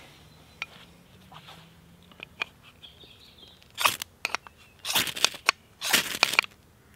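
Ferro rod scraped hard with a knife blade to throw sparks onto birch-bark tinder: a few faint ticks, then three loud, rasping strikes about a second apart in the second half.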